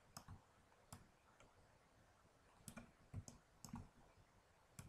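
Faint, scattered clicks of a computer mouse and keyboard, about half a dozen short clicks with gaps between them.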